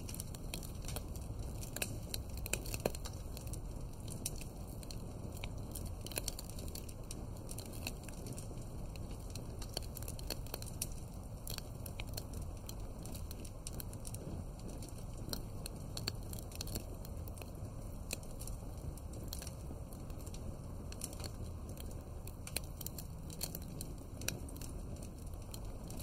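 Fire crackling: a steady low rumble of flames with frequent small, sharp pops and snaps scattered irregularly throughout.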